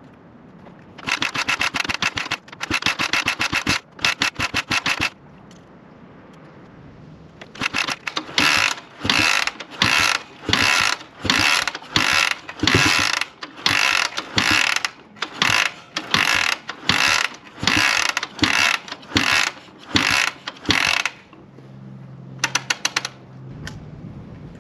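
Dnepr K-650 motorcycle being kick-started over and over without firing. Rapid clicking comes in three runs of about a second each, then in a long string of short bursts, a little under two a second. The engine does not catch, and the owner suspects a flat battery.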